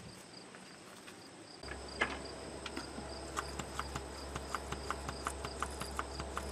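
Rapid, regular light ticking, about five ticks a second, over a low steady hum, as the Unimog 419's diesel fuel system is hand-primed to bleed air out at the fuel filter's bleeder screw.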